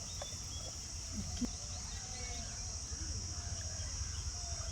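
Insects chirring in a steady high-pitched drone, with a few faint bird chirps and one brief knock about a second and a half in.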